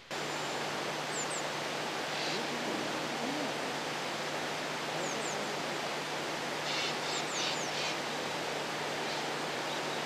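A steady outdoor rushing hiss, with a few faint, very high, thin descending chirps about a second in, near five seconds and around seven seconds.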